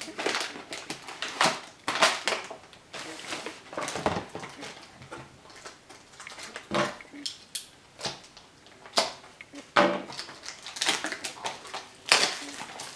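Plastic air-cushion packing wrap crinkling and a small cardboard box being handled and opened, an irregular run of rustles and sharp crackles.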